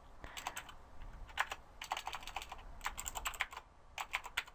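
Typing on a computer keyboard: short flurries of quick keystrokes with brief pauses between them.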